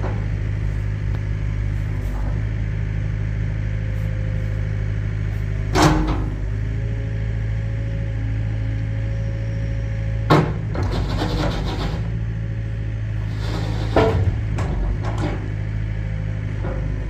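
Yanmar B50-2 mini excavator's diesel engine running steadily while the hydraulic boom and bucket are worked, with three sudden loud noises about four seconds apart as the arm moves.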